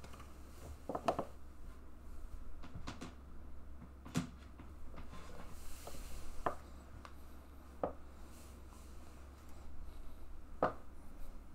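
A few scattered soft knocks and rubbing sounds from a person shifting about on a couch close to the microphone, over a steady low hum.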